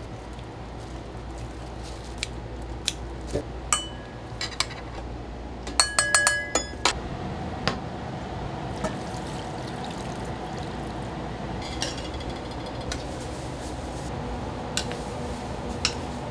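Dishes and utensils clinking in a restaurant kitchen. Scattered sharp clinks and knocks, with a quick run of ringing clinks about six seconds in, over a steady low hum.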